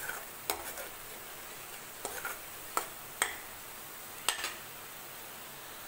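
Steel spoon scraping and clinking against a kadai while spiced masala fries in oil, about five sharp clicks over a steady sizzle.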